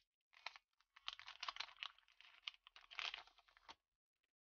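Irregular crinkling and crunching handling noises from working on a phone during a screen repair, with quick runs of small clicks that stop shortly before the end.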